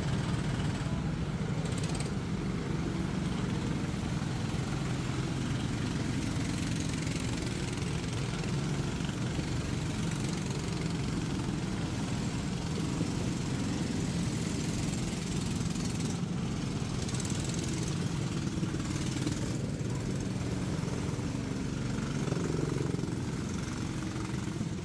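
Small petrol go-kart engines running steadily as the karts circle the track.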